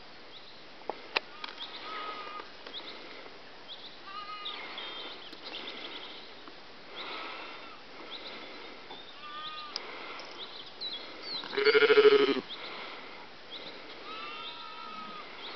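Sheep bleating: one loud bleat about twelve seconds in, with fainter, higher calls at intervals.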